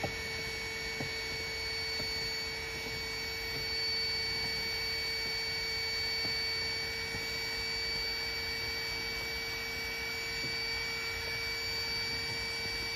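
Small electric air pump running steadily with a constant whining hum as it inflates an inflatable pool.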